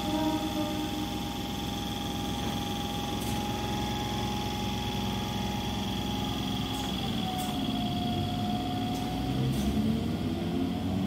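Electric suburban train (EMU) standing at the platform, humming steadily with a high electrical whine. About seven seconds in the tone drops, and rising whines begin as the train starts to pull away.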